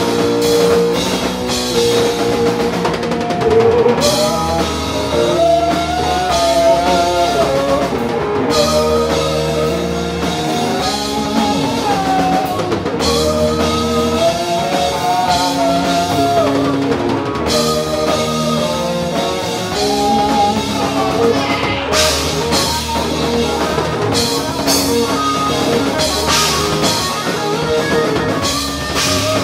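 Live rock band playing: electric guitar and drum kit, with a lead melody line that bends up and down over the chords.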